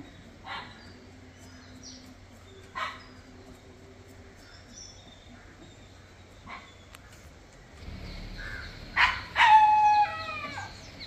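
A dog barks a few short single barks, with birds chirping faintly. Near the end there is a louder, drawn-out call whose pitch falls in steps.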